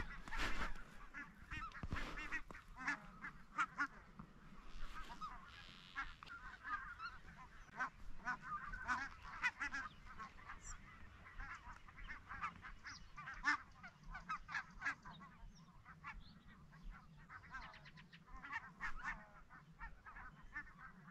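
A flock of geese calling, with many short, overlapping honks.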